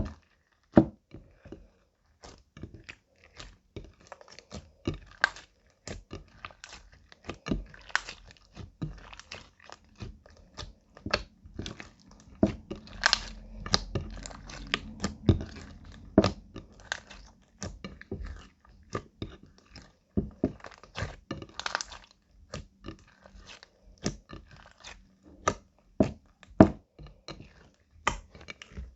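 Slime being squished and mixed by hand, with an irregular run of quick wet clicks and pops, several a second.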